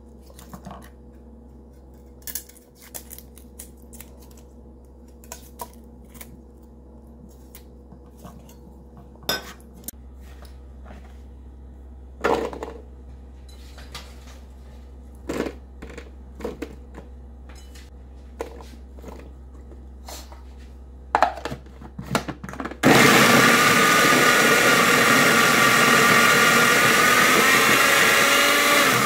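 Small electric food processor motor running steadily for about six seconds, its blade mincing onion and garlic; it starts abruptly near the end. Before it, scattered light taps and clicks of garlic being peeled with a knife on a wooden cutting board.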